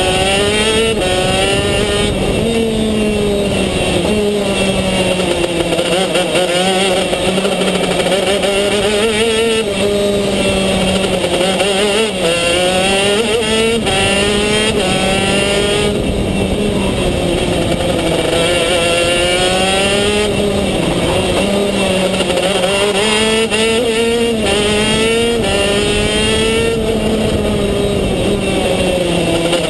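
Two-stroke racing kart engine heard onboard at speed. Its pitch climbs under full throttle and drops off again for each corner, over and over.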